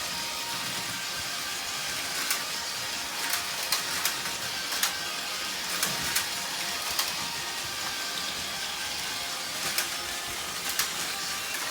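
Battery-powered Plarail toy trains running on plastic track: a steady whirring of small geared motors with irregular sharp clicks and clacks, over faint background music.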